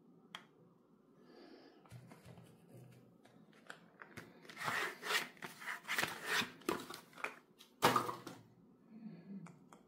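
Hands handling bars of soap and their wrapped packaging: scattered clicks, then a run of crisp rustling, crinkling and tapping, with the loudest knock about eight seconds in as the soap bars are handled.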